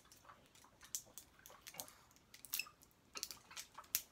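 Plastic safety seal being picked and torn off the cap of a maple syrup bottle by hand: irregular small crinkles and clicks.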